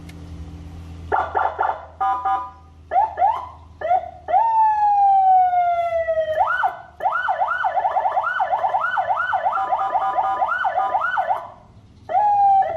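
Senken CJB100BD electronic vehicle siren cycling through its tones. First come short chirps and yelps, then a long falling wail about four seconds in. After that a fast rising-and-falling yelp of roughly three cycles a second runs for about five seconds, breaks off briefly near the end, and then another short tone sounds.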